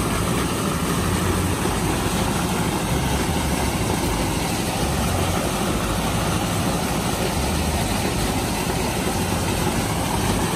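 Steady engine running, with polymer slurry gushing from a pipe into a settling tank.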